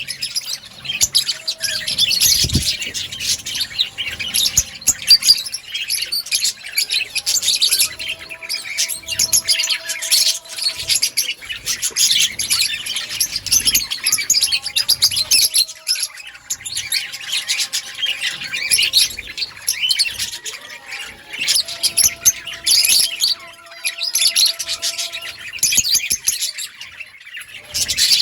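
A flock of budgerigars chirping and chattering together without a break, many high warbling calls overlapping with the odd squawk.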